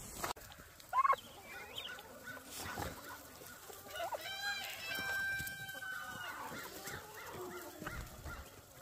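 Poultry calling, chickens among them, in short scattered calls with a quick rising call about a second in and a long, steady held call about four seconds in that lasts some two seconds.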